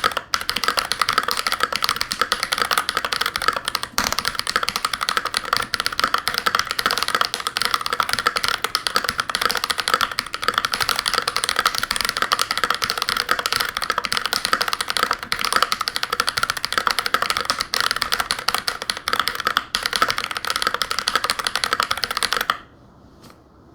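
Fast, continuous typing on a GMMK Pro mechanical keyboard fitted with a brass plate and Holy Panda tactile switches, a dense run of keystrokes. The typing stops abruptly near the end.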